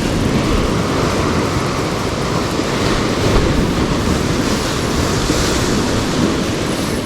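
Sea waves washing and surging against the shore in a swell, a steady rushing with wind buffeting the microphone.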